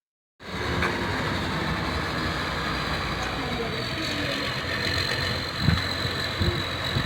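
Heavy truck engine running steadily with a low rumble, starting abruptly about half a second in, with a faint high steady tone coming in from about four seconds on.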